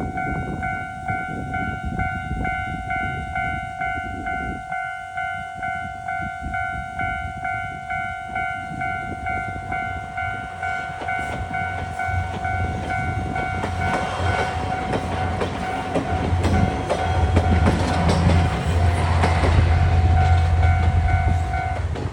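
Japanese level-crossing bell clanging in a rapid, even rhythm while a diesel train approaches and passes. From about ten seconds in, the train's wheels clack over the rail joints and its engine hums low, growing loudest near the end. The bell stops just before the end.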